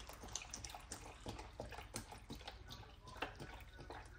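Chicken broth pouring from a carton into a pot of beans and corn, with faint, irregular glugs and splashes.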